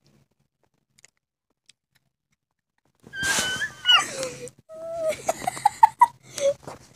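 A boy's breathy, high squeal that slides down in pitch, starting about three seconds in, followed by a string of short rising whimpers: a reaction to the taste of a sour grape candy.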